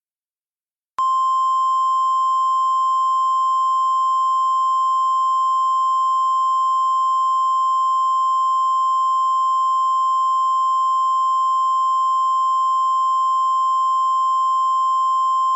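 Emergency Alert System 1050 Hz warning alarm tone (the NOAA Weather Radio tone), generated electronically: one steady unbroken tone that starts about a second in and holds at an even level, signalling that a warning message is about to follow.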